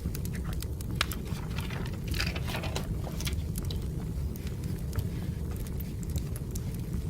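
Wood fire burning: a steady low rumble with frequent sharp crackles and pops, and a brief hiss about two seconds in.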